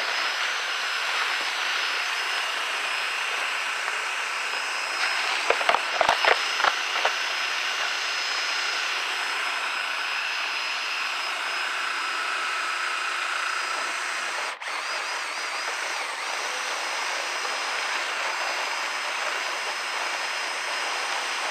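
Power drill spinning a rotary dryer-vent cleaning brush in the vent, running steadily with a faint high whine. A quick cluster of knocks comes about six seconds in, and the sound cuts out for an instant about two-thirds of the way through.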